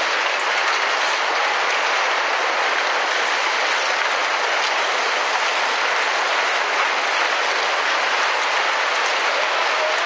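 Tsunami floodwater surging through a town and carrying wreckage: a steady, unbroken rushing noise.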